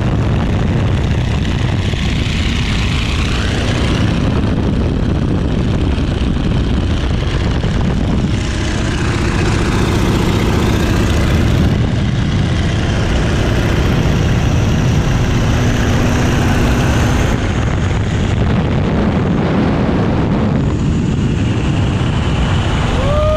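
Boeing Stearman biplane's radial engine and propeller running steadily in cruise flight, heard loud from the open cockpit with wind rushing past.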